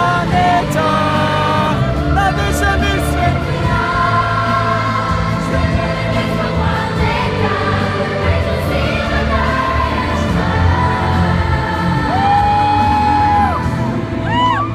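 Live pop song sung by young singers backed by a choir and band, with a long held sung note about twelve seconds in. It is heard from within the arena audience, so the sound is reverberant.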